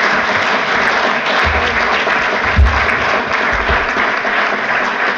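Audience applauding, sustained clapping throughout, with a short low thump about halfway through.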